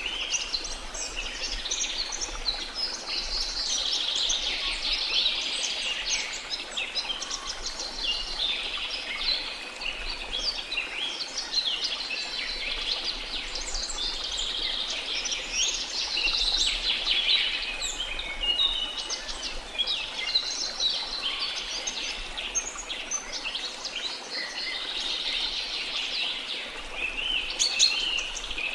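A flock of small songbirds chirping and twittering continuously, many calls overlapping, over a faint steady wash of sea.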